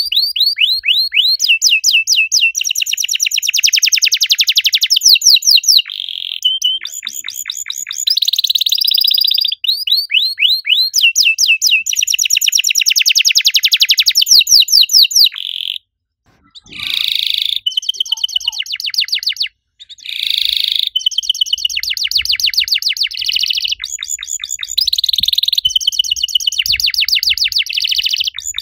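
White domestic canary singing long, fast trills of rapidly repeated chirping notes, one phrase running into the next at changing speeds. The song drops out completely twice for a moment a little past the middle.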